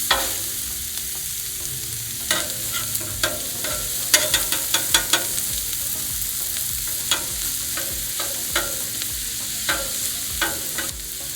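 Peppers, onions and sausage frying on a hot steel flat-top griddle, a steady sizzle. Sharp clicks and taps of a metal spatula on the cooking surface come in clusters as the food is turned.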